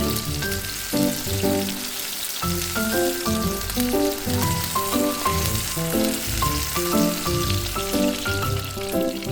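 Oil sizzling steadily in a frying pan as a tomato and egg pancake fries, under background music with a light plucked melody.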